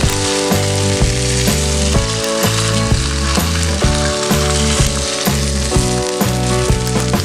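Hot oil poured over a steamed sea bass's topping of chopped chillies and minced garlic, sizzling steadily, over background music.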